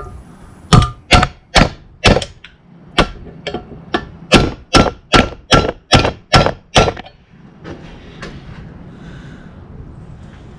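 Hammer blows driving the old bush out of a 1955 Fordson Major clutch pedal held in a vice. There are about fourteen sharp metallic strikes, each with a brief ring, at roughly two or three a second. A short pause comes after the fourth, and the blows stop about seven seconds in as the bush comes free.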